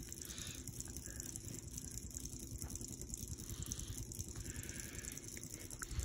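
Harbor Breeze classic-style ceiling fan running on a bench: a quiet, steady motor hum with the flutter of its spinning blades.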